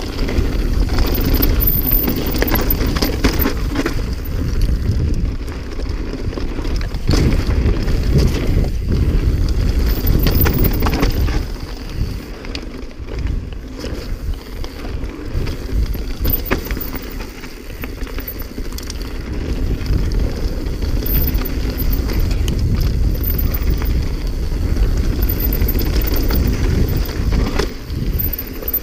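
Mountain bike descending a rocky downhill trail: tyres rumbling and crunching over stones, with frequent knocks and rattles from the bike, and wind on the camera's microphone. It eases off for a few seconds around the middle.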